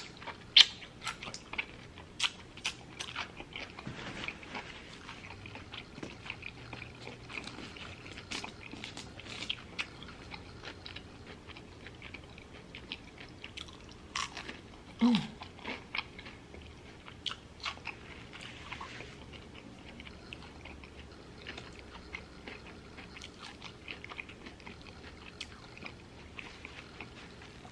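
Close-miked chewing and biting of a bacon cheeseburger and fries: irregular wet mouth clicks and smacks throughout, with a brief vocal sound about fifteen seconds in.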